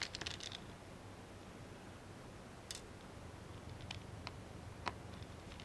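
Faint, scattered clicks of tiny laptop screws and a precision screwdriver: a quick cluster of light ticks at the start, then single sharp clicks every second or so.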